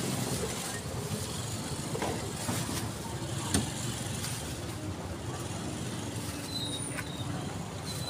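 Steady low rumble of a motor vehicle engine running, with one sharp knock about three and a half seconds in.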